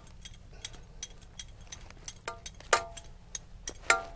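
Spoon clinking and tapping against a dish as food is packed into it: a run of light clicks with a few louder, ringing clinks, the loudest near the end.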